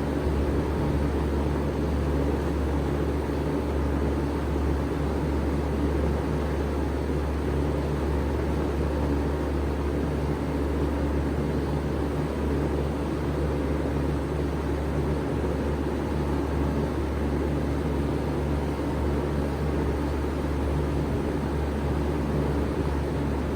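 1995 Bard 3-ton wall-hung heat pump running steadily in cooling mode: a constant low hum under an even rush of fan air.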